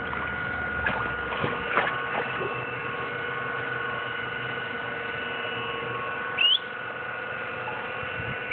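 A steady hum made of several fixed tones, with a few faint clicks in the first two seconds and two short rising chirps, one about six seconds in and one at the very end.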